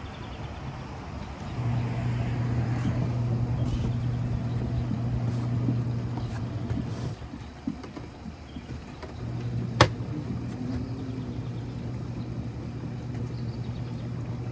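Small electric motor of a compact twin-tub portable washing machine humming steadily. It runs for about five seconds, stops for about two, then starts again, with one sharp click just after it restarts.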